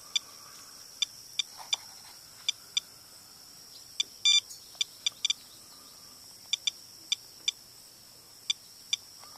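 Geiger counter beeping at irregular, random intervals, about two counts a second, each count a short electronic beep. It is counting radiation from rain runoff at a downspout, which the uploader reads as 6 to 8 times his normal background.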